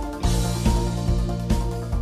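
Background music with a steady drum beat, a little over two hits a second, over sustained bass and melody notes.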